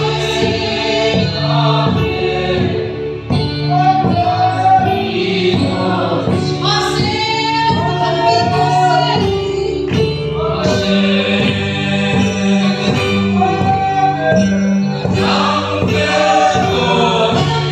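A congregation singing a gospel worship song together, male and female voices, over a sustained low accompaniment that moves from chord to chord.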